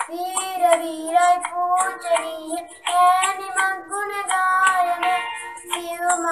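A boy singing a Sinhala Buddhist devotional song (bodu bhakti gee) in a clear high voice, moving between held notes.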